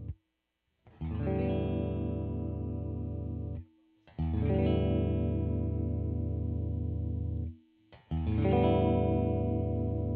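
Electric guitar, a Jazzmaster converted with a humbucker (a 'Jazzblaster'), played through effects: three chords, each struck and left to ring about three seconds, then muted.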